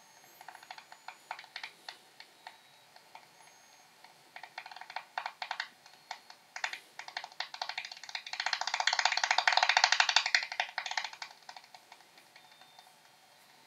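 Daubenton's bat echolocation calls from an Echo Meter Touch 2 recording, played back as a series of dry ticks. The ticks come faster from about six seconds in and run together into a rapid, louder rattle between about eight and eleven seconds, then thin out.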